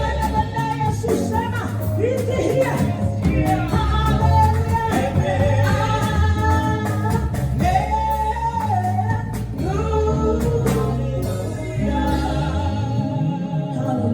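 Gospel worship song: a voice singing a melody over a band with steady bass notes and a drum beat.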